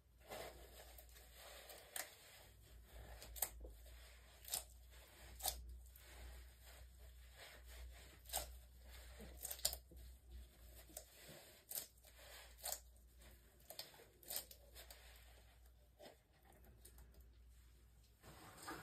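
Faint, irregular sharp clicks and taps of small objects being handled, about a dozen spread unevenly, over a low steady hum.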